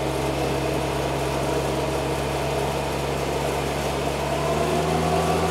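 Tow truck engine running steadily at a low, even idle, with a higher tone joining about four and a half seconds in.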